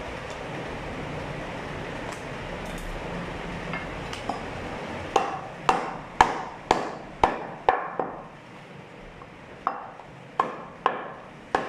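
Meat cleaver chopping through goat ribs onto a wooden chopping block: seven sharp chops about two a second starting about five seconds in, a pause of over a second, then four more.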